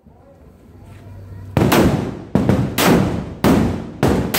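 Firecrackers going off in a quick, uneven run of loud bangs, about six in under three seconds starting a second and a half in, each trailing off in a short echo.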